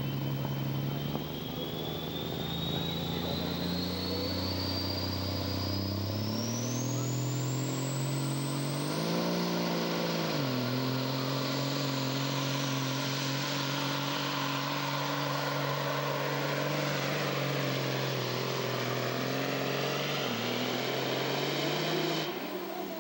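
Big-rig semi truck's diesel engine running hard under full load while pulling a sled, with a high whine rising steadily in pitch over the first nine seconds as the turbocharger spools up. The engine note climbs, drops back sharply about ten seconds in, holds steady, and falls away near the end as the pull stops.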